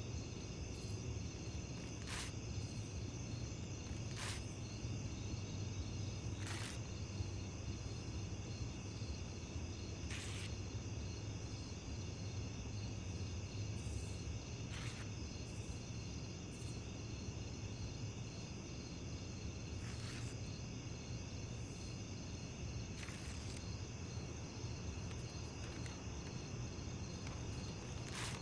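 Steady low hum under a constant high, warbling whine, with a few faint brief crackles every few seconds as puppies tug and chew brown packing paper.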